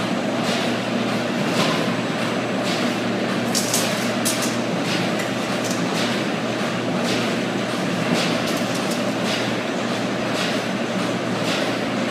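Meat grinding line machinery running steadily: a constant mechanical hum and rattle with regular clacks about once a second.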